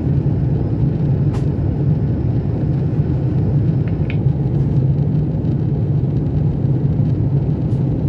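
Steady roar of an airliner cabin in flight: jet engine and airflow noise, heaviest in a low hum. One brief click about a second and a half in.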